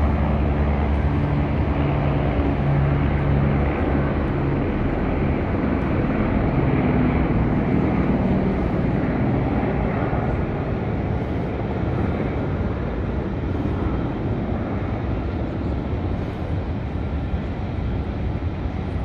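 Two low-flying helicopters, one a highway patrol helicopter, flying past with a steady rotor and engine drone. A low hum is strongest in the first half, and the sound grows a little quieter over the second half.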